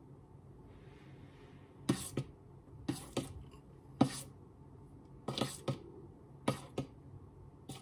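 Wire whisk knocking against a stainless steel mixing bowl while flour is folded into whipped egg-and-sugar batter: about a dozen sharp taps, often in quick pairs. A soft hiss of flour being poured comes about a second in.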